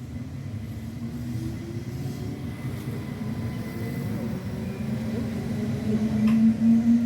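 Train on the Tokaido Main Line drawing near, its running rumble growing steadily louder, with a motor hum that rises slowly in pitch and is loudest near the end.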